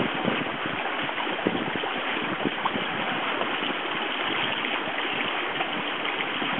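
Water rushing and splashing past the hulls of a small outrigger sailboat under way at about 6 knots: a steady hiss of spray from the float's bow wave, with small irregular splashes.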